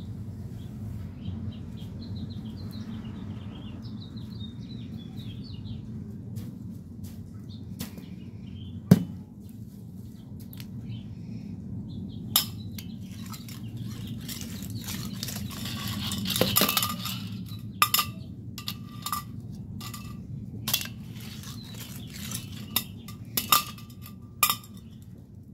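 Metal mesh wastebasket clinking and knocking against a toy garbage truck's lifting arm as it is raised, tipped and lowered: scattered sharp clicks, a longer rattle about two thirds through, then a quick run of clinks near the end.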